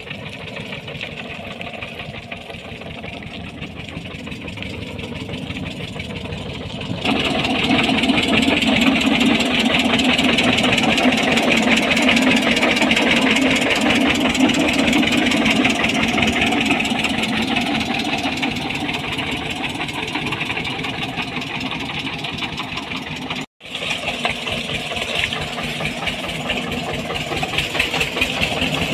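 Old tractor's diesel engine running steadily as the tractor drives through the field. It gets louder about seven seconds in and cuts out for a moment about three-quarters of the way through.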